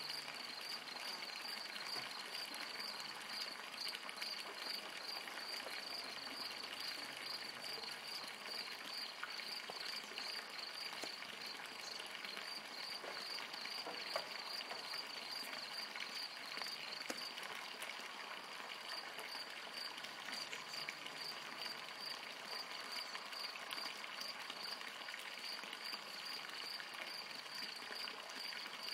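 Steady high-pitched chirping of an insect such as a cricket, pulsing evenly a few times a second, over a faint hiss of the pond's surroundings with a few small water clicks.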